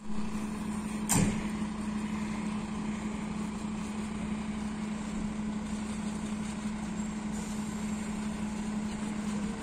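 MAN TGM fire engine's diesel engine idling with a steady low hum. A short sharp noise cuts through about a second in.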